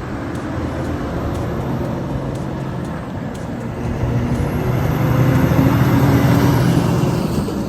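A truck engine running with a low rumble, growing louder from about four seconds in.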